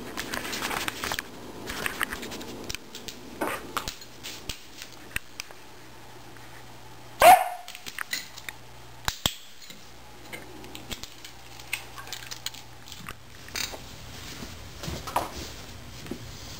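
A Border Collie gives one sharp bark about seven seconds in, with scattered light clicks and taps around it.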